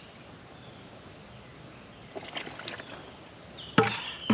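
Pond water sloshing and splashing as hands work in a small garden pond beside a plastic bucket. The splashing starts about two seconds in, and two sharp knocks come near the end.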